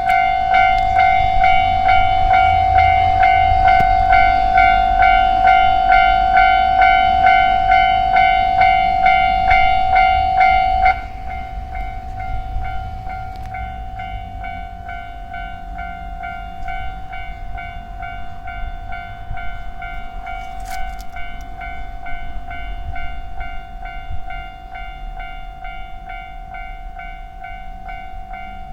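Japanese level-crossing electronic warning bell ringing, about two strikes a second. About eleven seconds in it drops suddenly to a lower volume and keeps ringing.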